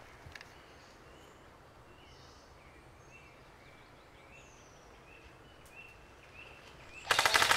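Small birds chirping, short high calls repeated over quiet woodland ambience; near the end an airsoft gun fires a loud, rapid full-auto burst lasting about a second.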